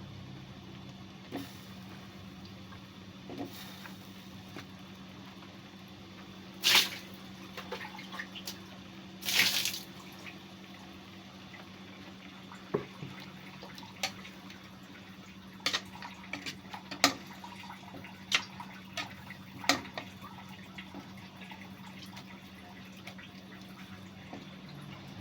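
Water splashing and dripping during kitchen work, with two short splashes about seven and nine seconds in and scattered sharp clicks and drips after them. A steady low hum runs underneath.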